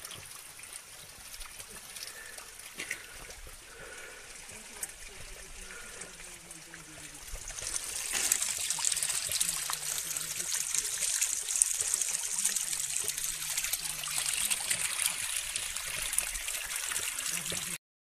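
Spring water pouring from a pipe and splashing into a rocky pool, a steady trickling hiss. It grows clearly louder about eight seconds in and stops abruptly near the end.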